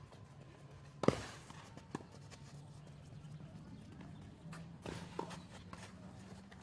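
Tennis ball being hit back and forth in a rally on a clay court: one sharp racquet strike about a second in, the loudest sound, a softer hit or bounce about a second later, and a few more knocks around five seconds in, over a faint steady low hum.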